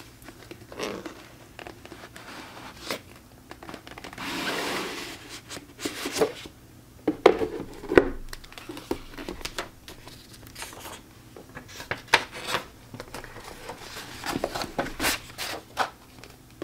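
Rigid cardboard journal box being opened by hand: a longer sliding rub about four seconds in, a few sharp knocks around seven to eight seconds, then paper rustling and light taps and clicks as the hardcover journal inside is taken out.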